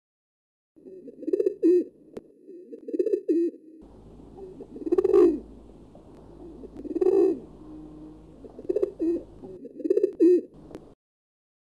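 Dove cooing: a series of low cooing phrases repeated every second or two, starting about a second in and stopping shortly before the end.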